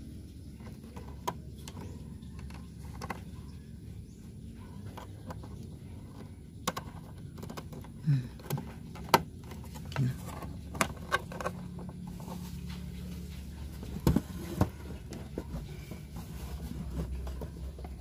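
Handling noise of a cable being fitted into the ports on the back of a TV: fumbling, with scattered clicks and knocks, most of them in the middle and a pair about three quarters through, over a steady low hum.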